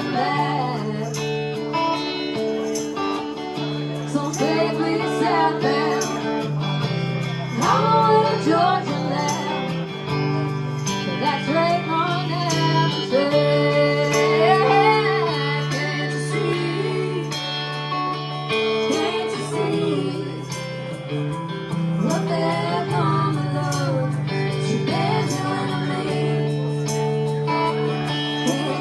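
Band playing a southern rock song, an instrumental stretch with no lyrics sung: steady guitar chords under a lead melody that slides up and down in pitch.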